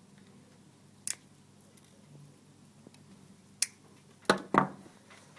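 Wire cutters snipping off soldered wire ends on a circuit board: four sharp snaps, the last two the loudest and close together near the end.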